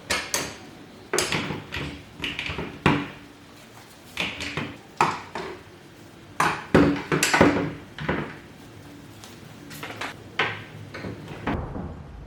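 Metal clamps clanking and knocking as they are handled and hung on a wooden clamp rack: a string of irregular sharp clacks, some with a brief metallic ring, that stops shortly before the end.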